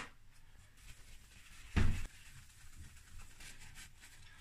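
Handling noise as a plastic motorcycle airbox is moved about by hand: faint rubbing with one dull thump a little under two seconds in.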